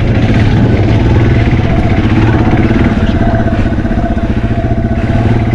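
Yamaha TW200's single-cylinder four-stroke engine running at a low, fairly steady speed on a steep off-road descent.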